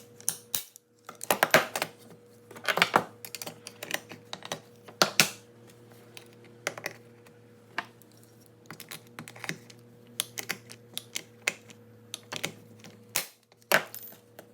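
Irregular clicks, taps and a few short scraping clatters as plastic armrest parts and hand tools are handled and fitted together, over a faint steady hum.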